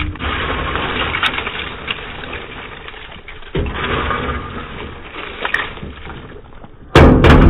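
Fried fish pieces scraped off a steel tray with a perforated steel ladle and tumbling into a large iron wok of masala: rough scraping and clattering in several bouts. A sudden loud clatter near the end.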